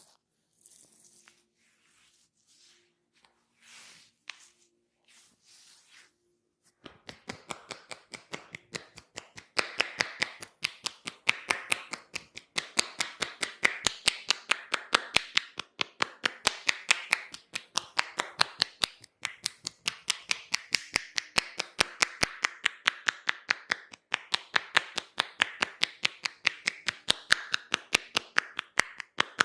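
Massage tapotement: hands striking skin in a fast, steady run of sharp slaps that starts about seven seconds in and grows louder a couple of seconds later. Before that, only faint soft rubbing of hands on skin.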